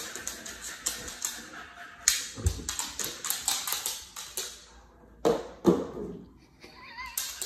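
A dog's claws clicking rapidly on a hardwood floor as it scrambles after and pushes a small ball, with two louder short sounds a little past the middle. Near the end there is a brief wavering whine, and the clicking starts up again.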